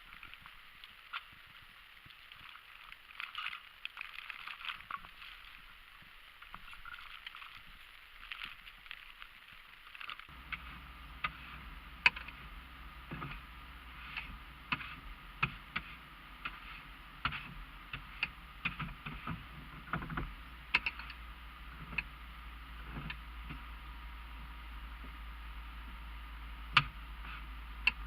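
Sounds in a car driving through a blizzard: irregular light clicks and taps over a faint hiss. About ten seconds in, a steady low drone starts and keeps running.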